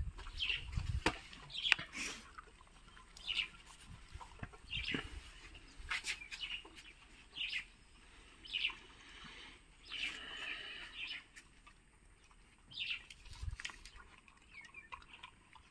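A dog eating rice, with chewing and licking sounds and small clicks, while a bird chirps in short calls repeating about once a second.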